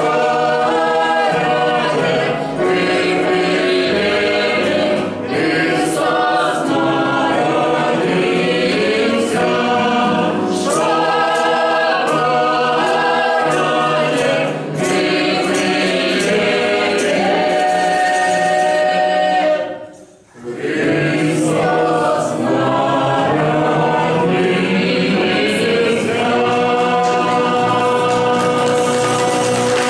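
A mixed ensemble of women's and men's voices singing a Belarusian folk song in chorus, in long held notes. The singing breaks off briefly about two-thirds of the way through, then resumes and closes on a long held note near the end.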